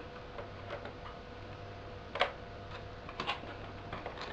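Light clicks and taps of a Phillips screwdriver and a loosened screw against a laptop's plastic underside. The sharpest click comes about two seconds in, with a quick pair about a second later.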